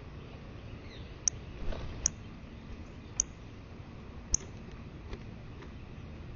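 Northern cardinal giving sharp, high chip notes, four of them about a second apart, over a steady hiss of rain.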